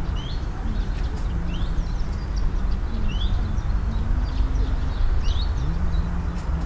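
Several short, rising bird chirps over a steady low outdoor rumble, with a faint hum that wanders up and down in pitch, like a distant engine.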